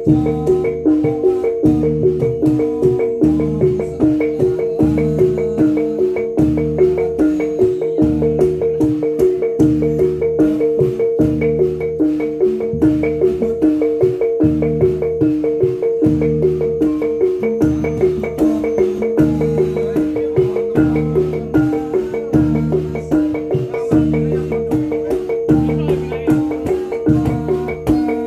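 Reog gamelan ensemble playing with tuned kettle gongs struck by mallets over a steady repeating beat of low strokes. A single high note is held throughout.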